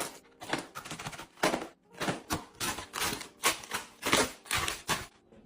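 Packaged chocolates being handled and set down one after another, a quick irregular series of clacks and wrapper rustles, about two to three a second.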